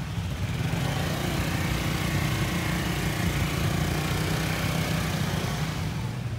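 A motor scooter's small engine running close by, growing louder about half a second in and fading near the end.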